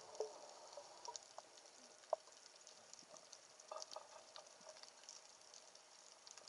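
Faint underwater crackling with scattered small clicks, one sharper click about two seconds in, picked up underwater through a camera housing.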